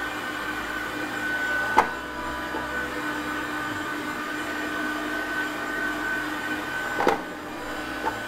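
Heat gun blowing steadily with a whining fan, played over 3D-printed PETG boxes to melt off stringing. Two sharp knocks, one about two seconds in and one near the end.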